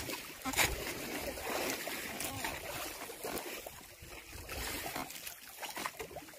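Wind and sea noise on a small fishing boat: a steady hiss with a few soft knocks.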